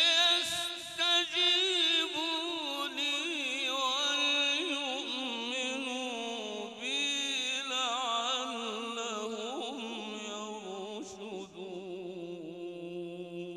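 A man's voice reciting a verse of the Quran in the melodic, ornamented mujawwad style, holding one long phrase full of winding turns. It is loudest at the start and slowly settles lower in pitch and level toward the end.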